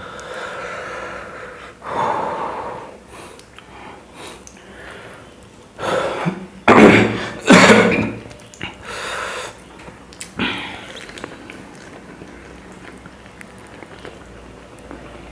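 A man eating chapati and breathing hard, with scattered noisy breath sounds. Two loud, sharp blasts of breath come about seven seconds in.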